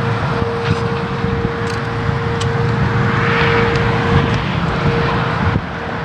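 Federal Signal Thunderbolt 1000T siren holding one steady tone, the Alert signal, swelling and fading slightly in loudness as it rotates, under a steady low rumble.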